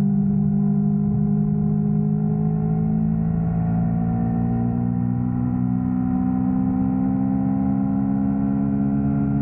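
Yamaha R3's parallel-twin engine running steadily under way, its hum climbing slowly in pitch from about three seconds in as the bike gently gains revs.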